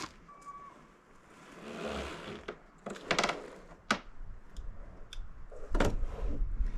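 Sawn elm boards knocking and scraping as they are handled and stacked: a few sharp wooden knocks, a short clattering rattle about three seconds in, and heavier thuds near the end.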